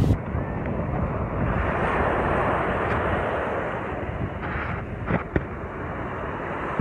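Steady wind buffeting the microphone, with surf washing on the shore behind it. Two short clicks come about five seconds in.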